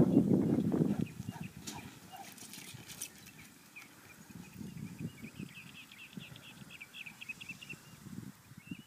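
Wind buffeting the microphone for about the first second. After that, quieter open air with small birds chirping, including a fast run of chirps a few seconds later.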